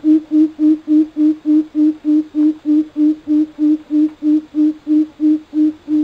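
Coucal calling: a long, even series of deep hooting notes, about three and a half a second, which stops right at the end.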